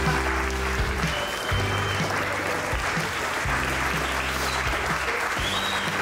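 A room of guests applauding, with music with a sustained bass line playing underneath.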